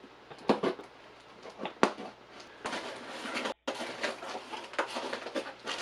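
Rummaging through packing material and loose parts: scattered light knocks and clicks with patches of rustling, and a brief dropout just past halfway.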